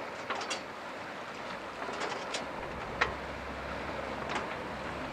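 Steady wash of sea and wind noise aboard a small sailing yacht, with a few short light knocks or clicks, the sharpest about three seconds in.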